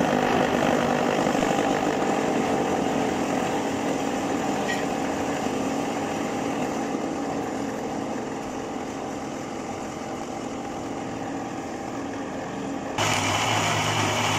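Countertop electric blender running steadily, its blades churning frozen strawberry custard mixture into a smooth liquid. The sound eases slightly as it goes, then turns louder and lower-pitched about a second before the end.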